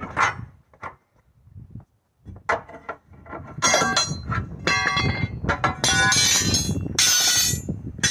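Steel tyre irons clanking and scraping against the steel rim of a large tractor wheel while the tyre bead is levered off. A few scattered knocks at first, then from about halfway a quick run of loud, ringing metal strikes and scrapes.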